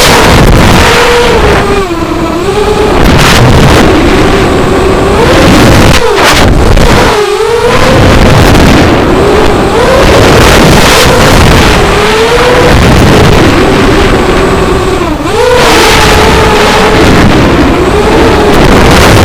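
FPV racing quadcopter's brushless motors and propellers whining loudly over a rushing noise, the pitch rising and falling with the throttle and dropping sharply a few times as the throttle is chopped for turns.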